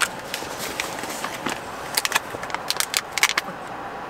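Crinkling and rustling of a foil food pouch being handled and opened: a run of irregular sharp crackles that grows busiest about two seconds in and stops shortly before the end.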